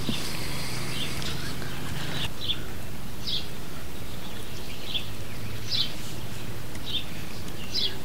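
A bird calling with short, high chirps about once a second over steady outdoor background noise. A low, steady hum drops away about two seconds in.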